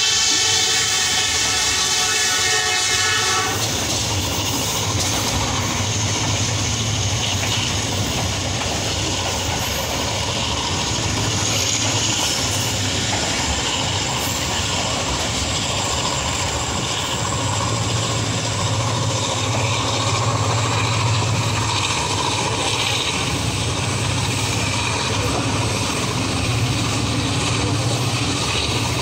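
A diesel locomotive horn, the ZCU-30 at the head of the train, sounds a steady chord and stops about three and a half seconds in. After that comes the steady rumble and rail noise of the moving passenger train, heard through an open coach window.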